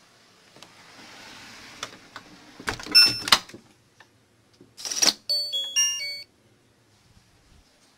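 Handling clicks and a loud clatter with brief tones about three seconds in, then a short noisy burst and a quick run of four or five electronic beeps at changing pitches, like a small electronic device or lock signalling.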